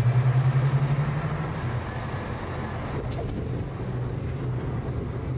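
Light single-engine aircraft's piston engine and propeller droning steadily, heard from inside the cockpit during landing and rollout. The drone drops in level about two seconds in, as power comes off.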